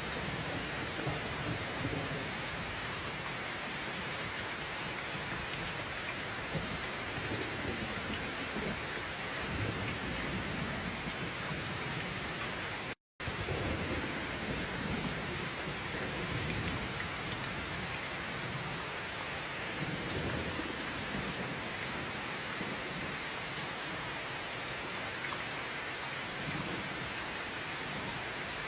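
Steady heavy rain with low rolls of thunder swelling and fading several times. The sound cuts out completely for an instant about halfway through.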